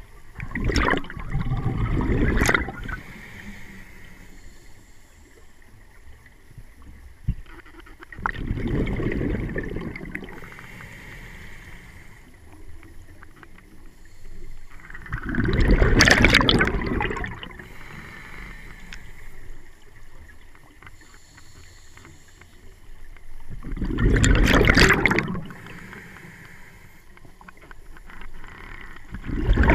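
Scuba diver breathing through a regulator underwater: five long, bubbly gurgles of exhaled air, spaced about seven seconds apart, with the last one at the very end. A quieter hiss of inhaled air comes in between.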